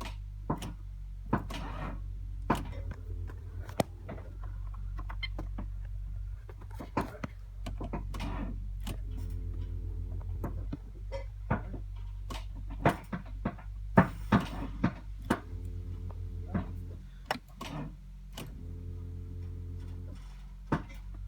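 Scattered knocks and clicks, a couple dozen irregular hits with the loudest about fourteen seconds in, over a steady low hum.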